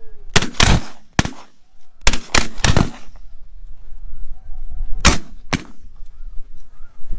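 Shotgun blasts from several hunters firing at geese overhead: about six shots in quick, uneven succession in the first three seconds, then two more about five seconds in.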